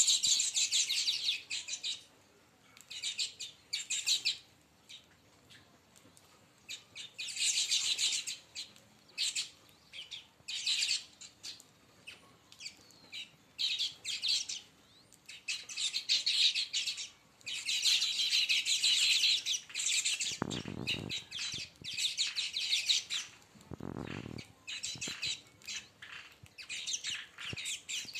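A flock of baya weavers chattering in bouts of rapid, high chirps, with short quieter gaps between the bouts. Two brief low rumbles come about three-quarters of the way through.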